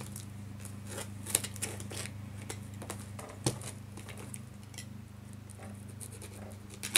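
Hands working at a taped cardboard box, trying to open it: irregular clicks, scratches and taps, the sharpest about a second and a half in and again about three and a half seconds in, over a steady low hum.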